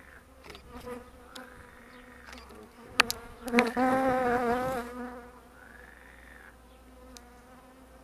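Honeybees buzzing steadily over an open hive. About three and a half seconds in, the buzz swells loud for about a second and wavers in pitch, just after a sharp click.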